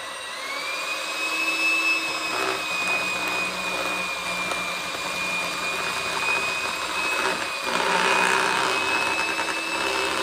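Electric hand mixer running at a steady high whine as it beats thick cookie dough, getting a little louder and rougher about eight seconds in.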